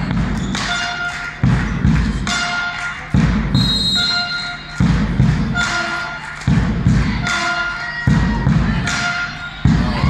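A big drum struck in a slow, even beat, about once every second and a half to two seconds, booming in a large hall over crowd noise. This is fans drumming in the stands during a volleyball rally.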